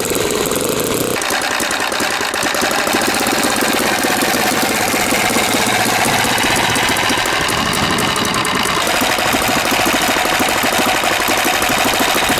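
NGH GF60i2 60cc inline twin-cylinder four-stroke gasoline engine running steadily on a test stand, driving a two-blade propeller. The sound changes abruptly about a second in, then holds steady.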